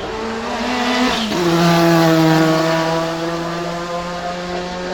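Renault 5 Maxi Turbo SuperProduction's turbocharged 1.4-litre four-cylinder engine running hard past. Its note drops sharply at a gear change about a second in, and it is loudest a moment later.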